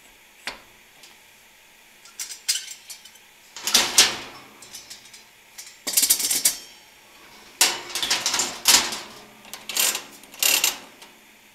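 Metal clinking and rattling from the chrome wire front guard of a DynaGlo kerosene heater as it is handled and seated on the heater body, in short bursts several times, mixed with small clicks from the control knob being pushed on and turned.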